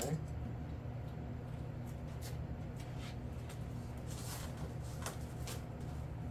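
Quiet workbench handling noises: a few soft knocks and rustles, mostly in the second half, as a foam RC jet fuselage and small parts are picked up and turned over. A steady low room hum runs underneath.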